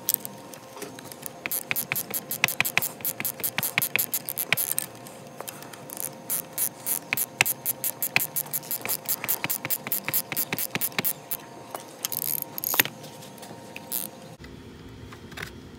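Ratcheting box-end wrench clicking in quick runs as it is swung back and forth, running down a sway bar end-link nut while an Allen key holds the stud. A single louder knock of metal comes near the end.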